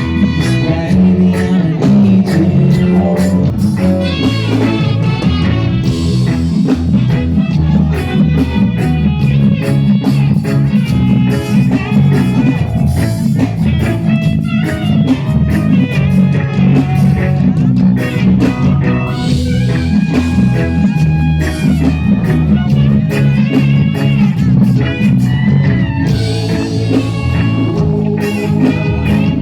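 Live band playing loud amplified music, with guitar over a steady drum-kit beat.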